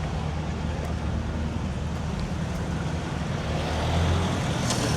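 Road traffic in a jam: vehicle engines running with a steady low hum over general street noise, a little louder about four seconds in.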